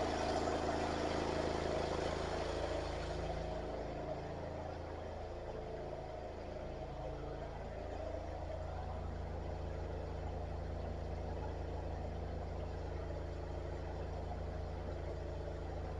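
Drain jetter's engine running steadily as it pumps out the last of its water tank. A higher hiss eases off about three seconds in, leaving the engine drone.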